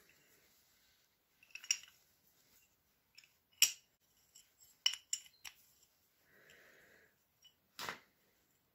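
Steel cab door hinges clinking and knocking together as they are handled, metal tapping on metal about half a dozen times with short quiet gaps between; the hinge leaves are loose, their original pins drilled out.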